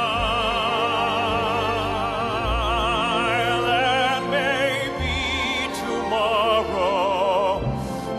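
Male classical-crossover baritone singing a series of long held notes with a wide vibrato, accompanied by a symphony orchestra and piano.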